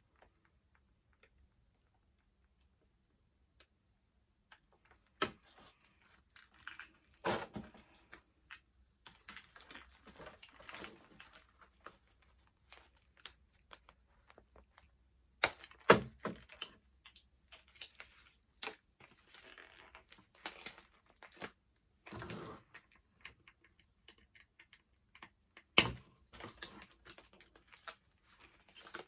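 Hands handling a doll and its plastic packaging: scattered sharp clicks and snaps with bursts of rustling and crinkling between them.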